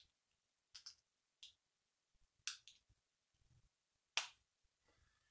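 A handful of small sharp clicks, loudest about four seconds in, from connectors being worked off the end of a model railway track section by hand.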